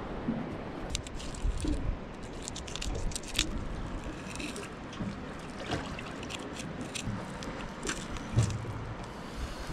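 A knife cutting a section off a whole yellowtail kingfish, with irregular scraping and squishing and scattered sharp clicks throughout, over a low rumble.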